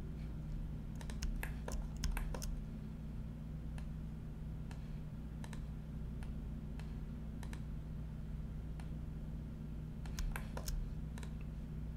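Computer keyboard keys and mouse buttons clicking irregularly, in two bunches of quick clicks with a few single ones between, over a steady low electrical hum.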